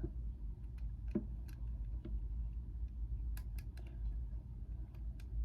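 Light, irregular plastic clicks and ticks from a GAN 11 M Pro speedcube being handled, over a steady low hum.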